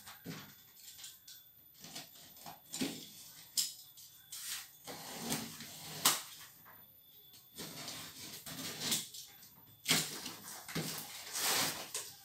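A cardboard box being cut and opened by hand: packing tape slit with a utility knife, with irregular scrapes, rustles and clicks of cardboard. The sharpest click comes about six seconds in, and the cardboard rustling picks up near the end as the flaps are folded back.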